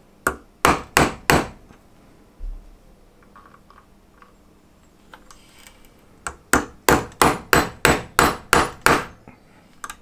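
Small hammer tapping a steel hand punch into the end of a clutch cable clamped in an aluminium block, splaying the cable strands open (bird-caging) before soldering. It gives four sharp taps, then after a pause a quicker run of about nine taps, roughly three a second.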